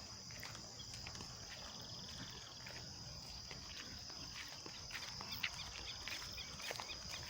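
Evening insect chorus: a steady high-pitched drone, like crickets, with scattered short chirps and clicks over it.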